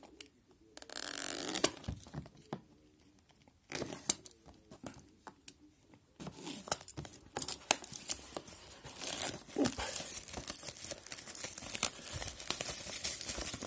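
Plastic shrink-wrap on a sealed trading-card hobby box being cut open and torn off, crinkling and crackling. It comes in short bursts about a second in and near four seconds, then rustles almost continuously through the second half.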